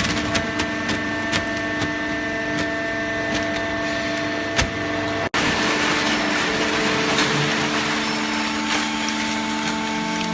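Hydraulic carton baler running: the steady hum of its motor and pump, with scattered clicks and cracks. The sound drops out for an instant about five seconds in.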